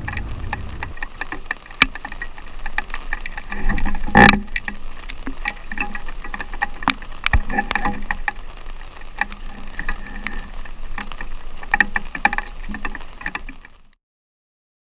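Irregular clicks and crackles, as heard by a camera underwater, with one louder knock about four seconds in; the sound cuts off to silence near the end.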